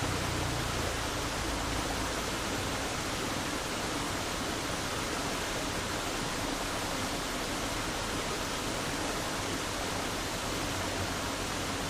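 Steady rushing of flowing stream water, an even noise with no breaks.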